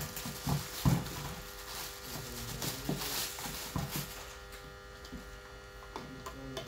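Clear plastic bag crinkling and rustling as it is pulled off a boxed air compressor and crumpled, with a knock about a second in. After about four seconds only quieter clicks of handling remain.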